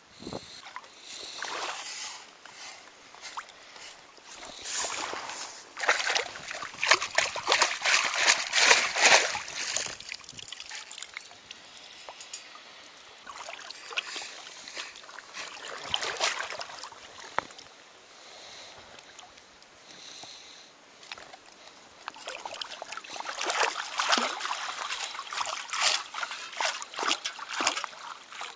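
Water splashing and trickling as a long-handled perforated metal sand scoop is dug into a lake bottom and lifted out, draining through its holes. It comes in several bursts, the longest about five seconds in and another near the end.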